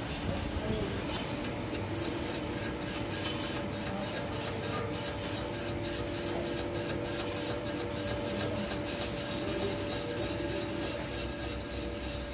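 Line-boring machine turning its boring bar through the crankshaft main bearing bores of an engine block, with a steady high-pitched squeal from the cut over a lower steady machine hum. The squeal drops in pitch about a second in, and a few sharp ticks come near the end.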